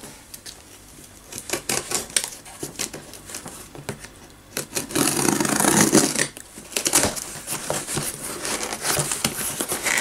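Snap-off utility knife cutting the packing tape on a cardboard box, with scattered scrapes and clicks of blade, tape and cardboard, and a louder stretch of tape tearing and cardboard rustling about five seconds in as the tape is pulled back.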